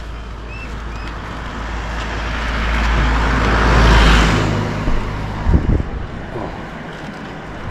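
A road vehicle passing close by, its engine and tyre noise building to a peak about four seconds in and then fading, followed by a few low thumps.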